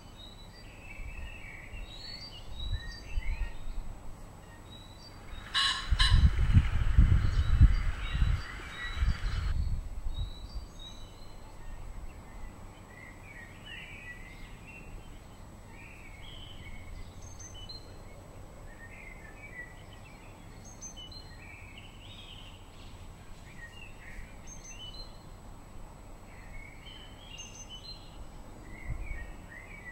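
Male common pheasant crowing once, a loud harsh call about six seconds in, followed by a few seconds of whirring noise, with small birds chirping throughout.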